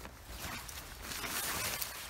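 Zipper being pulled open on a nylon backpack, with rustling of the pack's fabric, the hiss growing louder in the second half.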